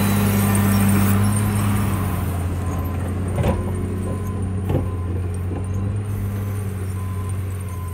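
Caterpillar 938G wheel loader's diesel engine running steadily as it plows deep snow, with two sharp metallic clinks about three and a half and five seconds in.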